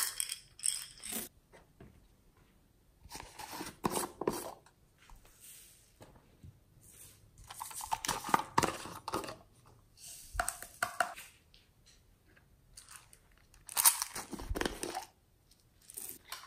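Hands opening small plastic toy capsules and tipping beads and glitter onto slime: short bursts of plastic clicking, rattling and crinkling, about five of them a few seconds apart.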